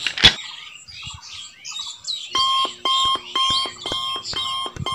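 A sharp click about a quarter second in, with faint bird chirps. About two seconds in, an electronic alarm-like beeping starts, about two beeps a second.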